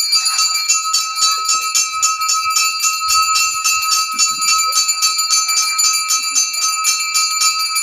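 Brass temple bell rung rapidly and continuously during the lamp offering, several strikes a second in an even rhythm, its ringing tones sustained between strokes.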